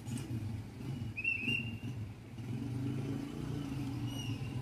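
Low, uneven engine rumble, with a brief high chirp about a second in and a fainter one near the end.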